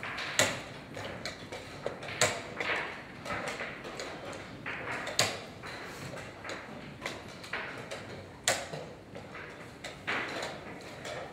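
Sharp wooden clicks and knocks of chess pieces being set down and chess clocks being pressed in blitz play, several loud ones at irregular intervals, over a steady hubbub of a busy playing hall.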